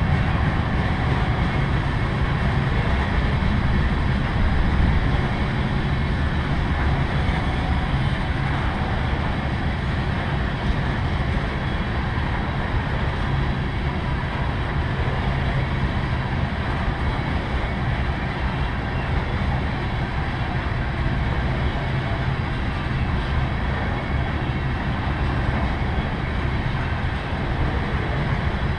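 Freight train of tank cars rolling past: a steady rumble of steel wheels on rail that does not let up.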